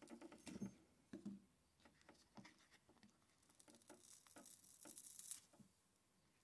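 Faint small clicks and taps as rubber-topped xylophone bars are handled. About three and a half seconds in comes a soft crackling peel, lasting under two seconds, as a rubberized adhesive-backed bar is pulled free of its softened glue.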